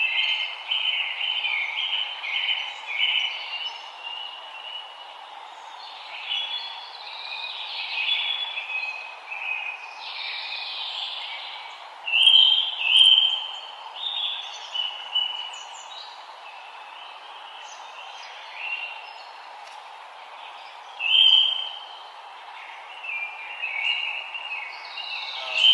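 Several forest songbirds singing and calling in short chirped phrases, busiest near the start, in the middle and near the end, over a steady low hiss of background noise.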